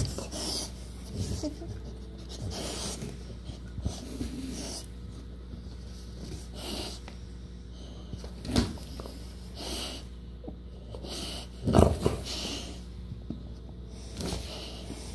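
American bulldog puppy making a scattered series of short grunts and noisy breaths, about ten bursts in all, the loudest about twelve seconds in.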